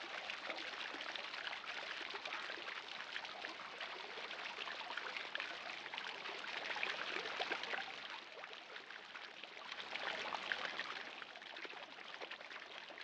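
Water splashing and pattering steadily from a pond's floating spray fountain, a fizzy, crackly rush that eases a little about two-thirds of the way through.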